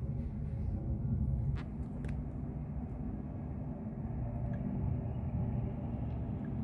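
Distant jet airliner engines, a low steady rumble, with a couple of faint clicks about one and a half and two seconds in.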